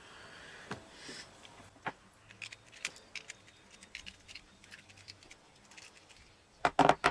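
Small clicks and taps of skateboard hardware and tools being handled, with a few louder knocks close together near the end.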